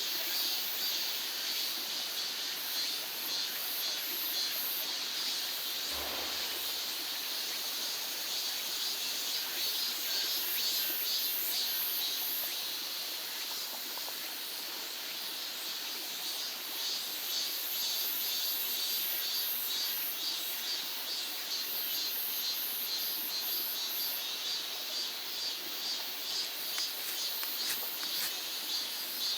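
Insects chirping in fast, steady high-pitched pulses over a soft hiss, with one brief low thump about six seconds in.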